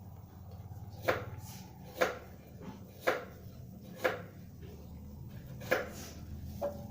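Sharp knocks, roughly one a second, over a low steady hum.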